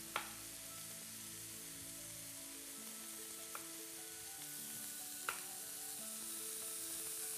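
Beef pieces sizzling steadily as they fry in a pan, with three sharp knocks of a chef's knife cutting a carrot lengthwise on a plastic cutting board.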